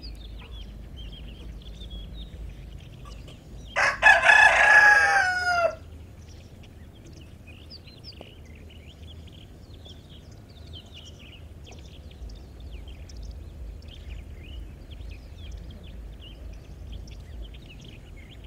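A rooster crows once, about four seconds in: a loud call of about two seconds that drops in pitch at the end. Around it, faint high chirps and soft clucking from the flock.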